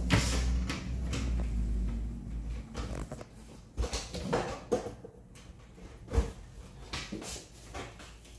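Handling noise: a low rumble for the first two seconds or so, then scattered light knocks and clicks as a power cable is handled at a power strip.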